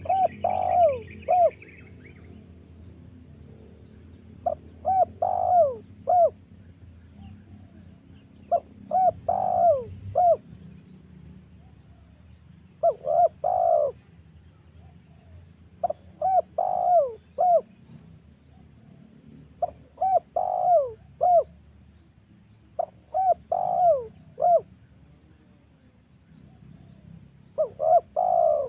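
Spotted dove (tekukur) cooing its lure call: a phrase of three to four falling coos, repeated about every three to four seconds, over a low steady hum. A brief higher chirping from another small bird comes at the very start.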